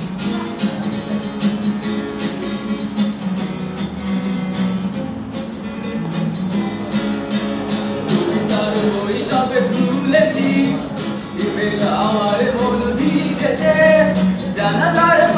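Steel-string acoustic guitar strummed in a steady rhythm; a man's singing voice comes in about halfway through and carries on over the strumming.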